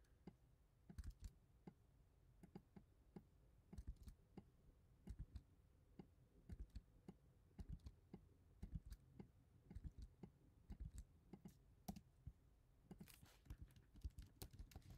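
Faint computer keyboard typing: scattered, irregular keystrokes, with a quicker run of keys near the end.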